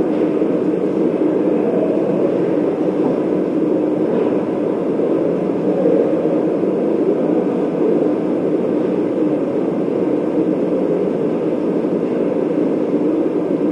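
Steady mechanical hum in an indoor ice rink, a low, even rumble with no distinct events.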